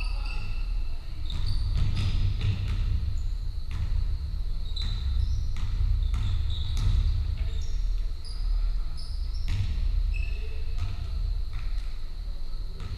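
Basketball bouncing on a wooden sports-hall floor in irregular thuds during play, with short high squeaks of trainers on the boards, echoing in the large hall over a steady low rumble.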